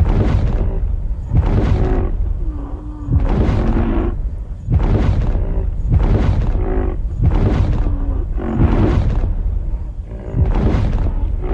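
A large animal giving loud, rough calls over and over, one about every one and a half seconds.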